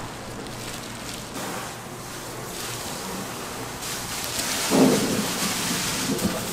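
Food sizzling as it cooks: a steady crackling hiss that grows louder about four seconds in, with a sudden louder burst near the five-second mark.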